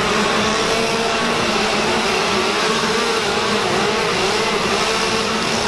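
Several gas chainsaws running together at high revs: a steady, overlapping buzz whose pitches waver slightly.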